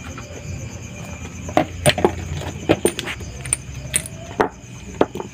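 Irregular run of sharp plastic clicks and light taps from a handheld digital multimeter: its rotary selector dial being turned and its test probes being handled.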